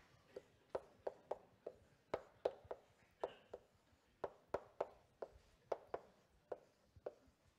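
Chalk tapping and scraping on a blackboard while figures are written: a rapid, irregular series of sharp clicks, about two to three a second.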